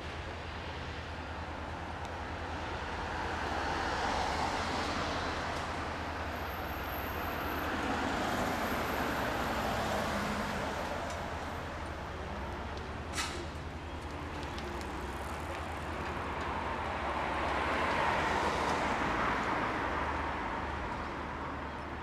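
Street traffic: vehicles pass one after another, three swelling and fading past over a steady low rumble, with a single sharp click about halfway through.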